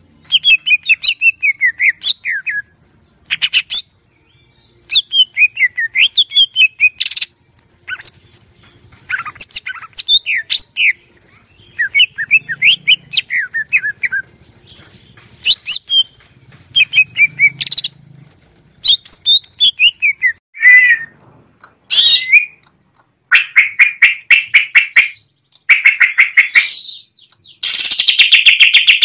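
Greater green leafbird (cucak ijo) singing a loud, varied song in bursts of rapid, falling whistled notes, each phrase one to three seconds long with short pauses between, turning into faster, denser rattling phrases near the end.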